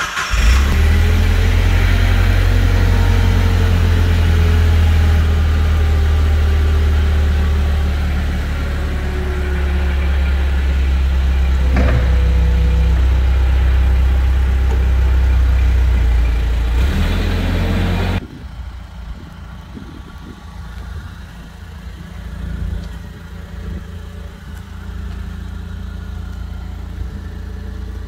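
Hangcha CPYD18-XH1F forklift's engine running steadily just after starting, loud from the driver's seat. About 18 seconds in, the sound drops suddenly to a quieter, more distant engine idle.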